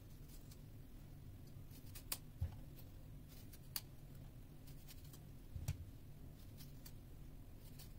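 Faint scattered clicks and taps of a small knife cutting cherry tomatoes over a stainless steel mesh colander, the tomatoes set down in it, over a low steady hum. There are four or five clicks in all.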